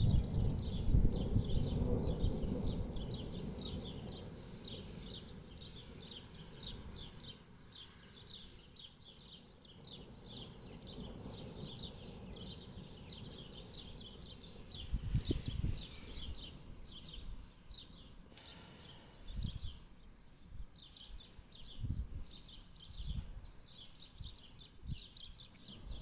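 Thunder rumbling low and dying away over the first few seconds, with small birds chirping rapidly throughout. A few short low thumps come in the second half.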